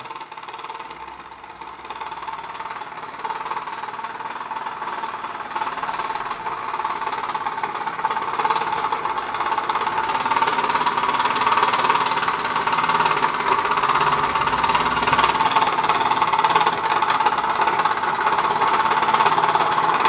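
Castle Products Model B toy horizontal steam engine running fast with a rapid, even mechanical beat, growing louder over the first several seconds and then holding steady. It is running as it should now that the loose safety-valve nut and spring have been tightened, so the valve no longer vents steam and the boiler holds pressure.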